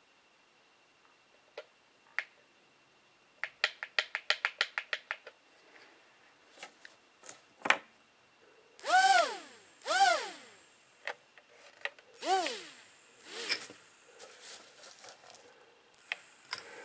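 Hubsan X4 H107L quadcopter's tiny coreless motors spinning up in four short blips, each a quick rising-then-falling whine: the drone runs on its resoldered battery wire. Before them comes a quick run of light clicks, about eight a second.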